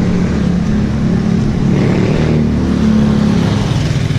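Small motorcycle engine of a tricycle (motorcycle with sidecar) running close by as it overtakes, a steady engine drone that gets a little louder near the middle.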